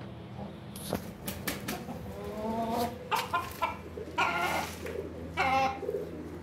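Chickens clucking and calling: a few sharp taps about a second in, then a series of short calls, loudest in the second half.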